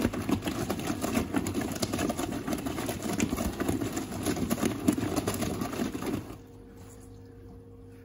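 Top-loading washing machine drum turning mid-cycle with a busy rattling noise, then stopping abruptly about six seconds in, leaving only a faint steady hum from the machine.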